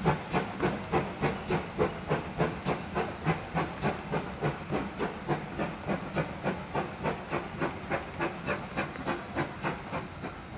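Exhaust beats of the GWR Modified Hall 4-6-0 steam locomotive No. 6989 'Wightwick Hall', a steady rhythm of chuffs with a hiss of steam, fading as the train pulls away.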